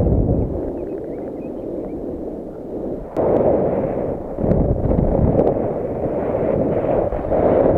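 Airflow rushing over a paraglider pilot's camera microphone in flight, a low, uneven rush that grows louder about three seconds in.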